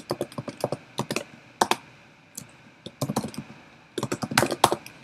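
Typing on a computer keyboard: runs of quick, irregular key clicks with a couple of short pauses between them.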